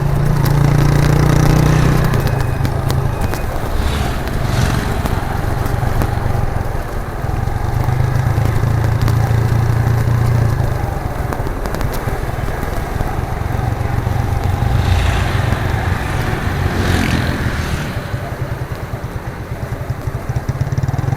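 1998 Suzuki GN125's single-cylinder four-stroke engine and exhaust running under way, the note swelling and easing with the throttle several times and dropping back near the end.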